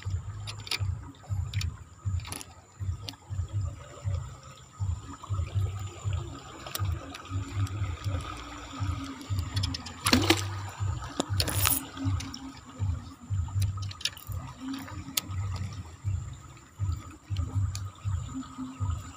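River water splashing as a fishing lure is worked back across the surface, with a rhythmic low thudding about three times a second throughout. A sharp splash at the surface comes about ten seconds in.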